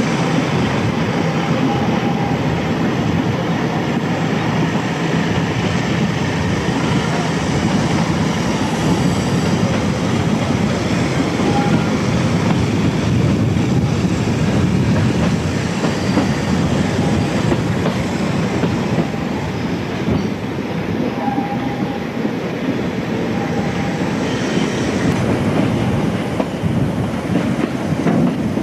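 Freight train of boxcars rolling along the line, heard from on top of a car: a steady rumble and clatter of wheels on the rails, with a few brief faint squeals.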